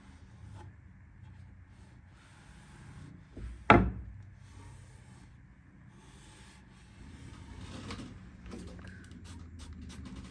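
Household handling sounds: one loud sharp knock a little over a third of the way in, then rubbing and a run of light clicks and taps as objects are moved about.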